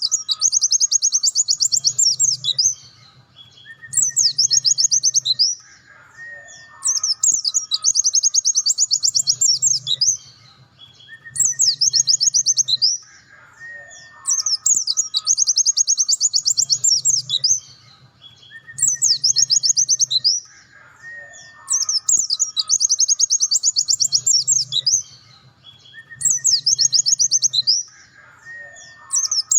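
Pleci dakun white-eye singing long, very rapid high trills in bursts of a couple of seconds with short pauses between. Quieter, lower whistled notes fall in the gaps, and the same phrases come round again every few seconds.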